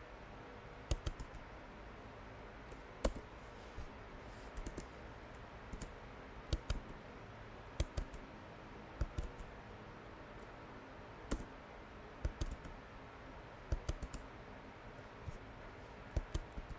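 Computer keyboard keystrokes in sparse, irregular clusters of a few clicks, with pauses of a second or more between.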